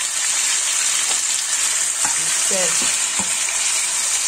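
Chopped tomatoes, pepper and onions sizzling steadily in hot oil in a frying pan, with a few short knocks and scrapes as a spatula stirs them.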